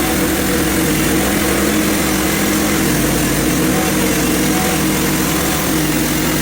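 Engine of a Hudson HFE30 portable band sawmill running steadily, driving the band blade through a log.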